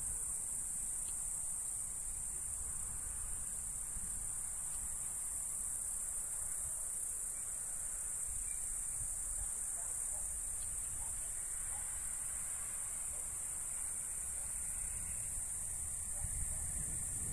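Steady high-pitched chirring of crickets, unbroken throughout, over a steady low rumble.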